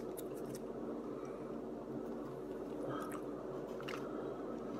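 A plastic ketchup packet crinkling and clicking as it is squeezed over fries, then soft chewing, over a steady low hum.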